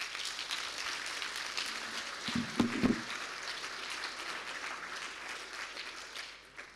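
Audience clapping, a dense patter of many hands that dies away near the end.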